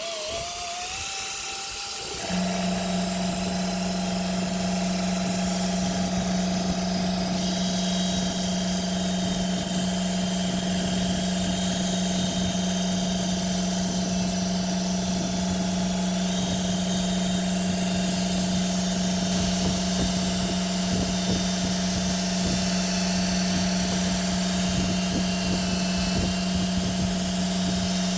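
A power tool's motor starts about two seconds in and runs at a steady speed, with an even hum and a higher whine above it.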